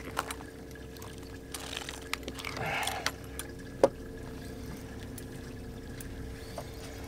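Water trickling and splashing lightly by a boat, over a steady low hum, with a few light clicks and one sharper click about four seconds in.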